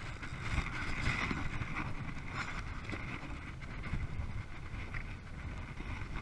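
Strong wind buffeting the microphone in rough, choppy open water, with a hiss of splashing water that is strongest in the first couple of seconds.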